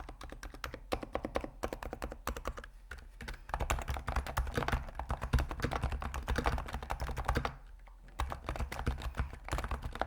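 Fast typing on a computer keyboard: dense runs of keystrokes, softer for the first few seconds and louder from about three and a half seconds in, with a short pause near the end.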